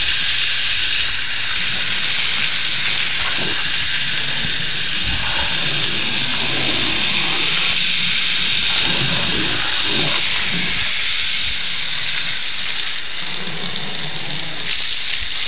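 Water spraying steadily from a garden hose, a continuous hiss, used to wet down the concrete mix and the surrounding walls.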